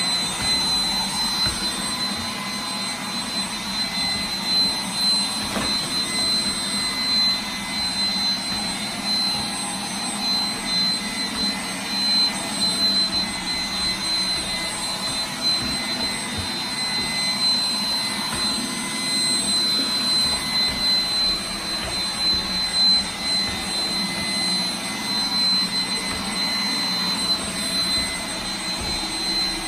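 iRobot Roomba 980 robot vacuum running in Spot Clean mode: a steady whirring of its suction fan and brushes with a high whine held on one pitch.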